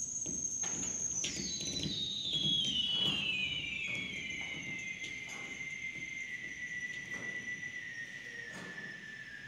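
Electronic sound score: a high whistling tone that slides down in steps over the first few seconds, then holds steady, over a low rumbling, pulsing bed.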